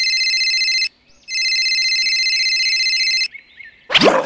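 Rapid trilling electronic ringing, like a phone or alarm ring, in two bursts of about two seconds with a short break between. Near the end comes a brief rising sweep.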